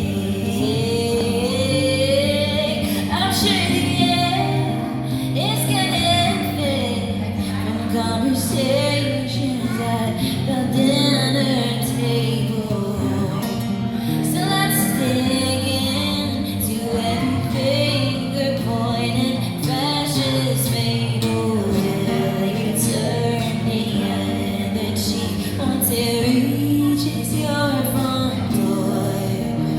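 A woman singing a song with instrumental accompaniment, the voice rising and falling through sung phrases over steady held chords.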